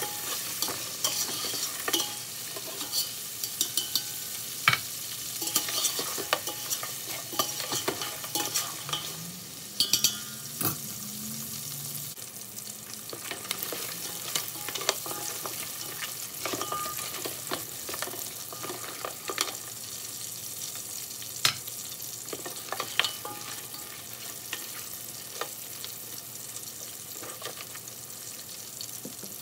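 Beef chunks and garlic sizzling in oil in a large metal pot, with a utensil scraping and knocking against the pot as they are stirred. The knocks come thick over the first dozen seconds and only now and then after that, leaving the steady sizzle.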